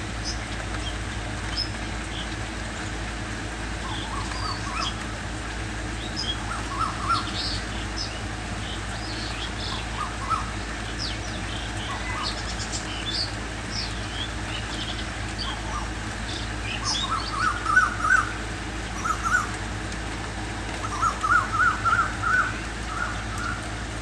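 A cuckoo calling in quick runs of short repeated notes, loudest in two bursts in the second half, with thinner, higher bird chirps scattered throughout over a steady hiss of rain.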